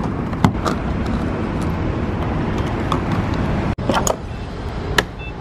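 Sharp clicks and knocks of refuelling: a car's fuel door being pushed open and a gas-pump nozzle being lifted and handled, over a steady low vehicle rumble.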